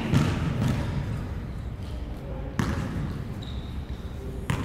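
Basketball bounced twice on an indoor court before a free throw, each bounce a sharp thud with a short echo off the hall walls.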